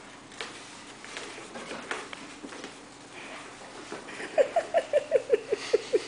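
A small puppy's claws clicking and pattering on a slippery hardwood floor. Near the end comes a quick run of about ten short squeaks, about six a second, louder than the pattering.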